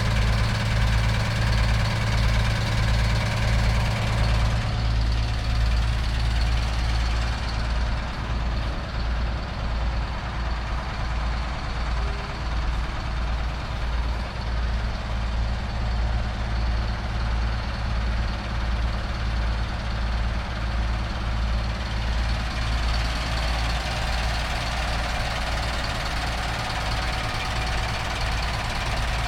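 A large engine idling steadily, with a low, evenly pulsing rumble.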